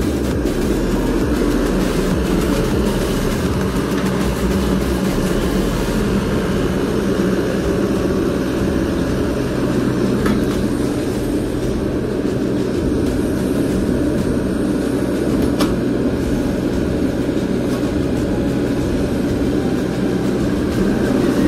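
Sunward mini excavator's diesel engine running steadily at an even pitch while the machine digs.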